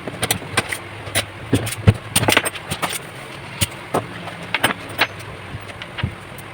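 Arc welding with a home-built inverter stick welder during a test weld: the arc crackles and pops irregularly over a steady hiss.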